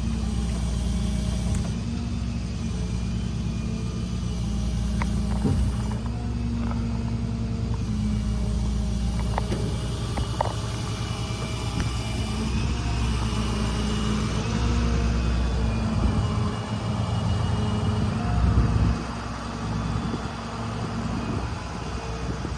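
Rollback tow truck's engine running steadily with a low rumble, with a few sharp clicks and knocks over it; the engine note drops and quietens near the end.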